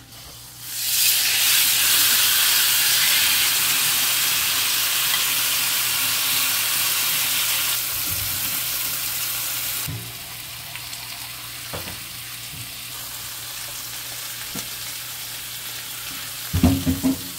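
Marinated chicken breasts sizzling on a hot ridged grill pan. The sizzle starts suddenly about a second in and is quieter after about ten seconds. A few light knocks of a utensil against the pan come through it, with a short clatter near the end.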